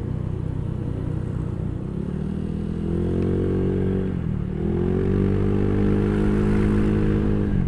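Motorcycle engine heard while riding, pulling away: it rises in pitch, eases off briefly about four seconds in, then accelerates again and holds a higher steady pitch.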